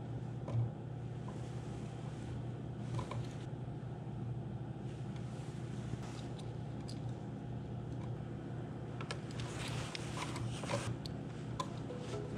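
Faint clicks and rustles of hands fitting wires to a duplex electrical outlet and turning its screw terminals with a screwdriver, a little busier about nine seconds in, over a steady low mechanical hum.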